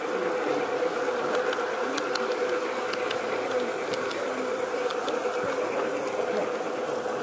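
A G-scale model train running along garden track, its small electric motor and gearing giving a steady buzz at one pitch, with a few light clicks from the wheels on the rails.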